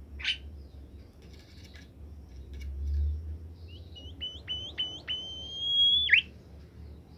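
Bimoli bird singing: a short call, then four quick downward-sliding notes and a long, steady high whistle held for about a second that ends with a sharp drop.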